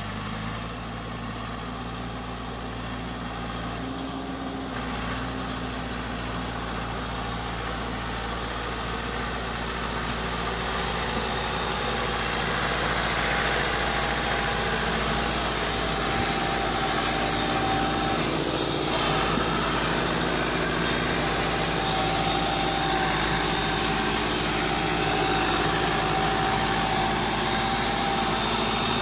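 Massey Ferguson 385 tractor's four-cylinder diesel engine running steadily under load as it tows a trolley loaded with earth. It grows louder over the first dozen seconds as the tractor comes closer, then holds steady.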